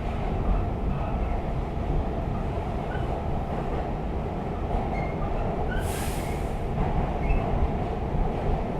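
R46 subway car running along the track, a steady rumble of wheels and motors with short, high wheel squeaks and a brief hiss about six seconds in.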